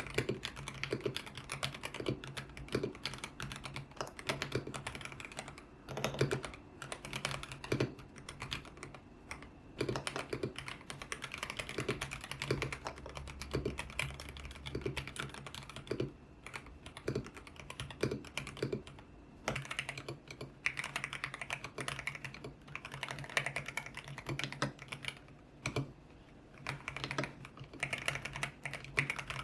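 Continuous typing on a YUNZII X75 Pro mechanical keyboard with Kaith Jellyfish switches and its original transparent keycaps: a fast, uneven stream of key clacks with occasional heavier strokes.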